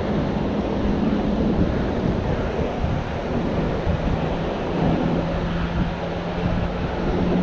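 Wind buffeting the microphone, a dense low rumbling noise, with a faint steady low hum underneath that drops slightly in pitch about halfway through.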